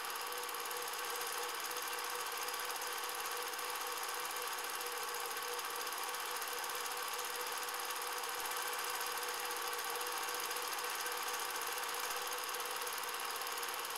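Cine film projector running: a steady mechanical whirr from its motor and film transport.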